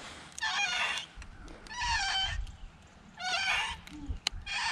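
An animal calling over and over: a short, wavering, high cry about every second and a half.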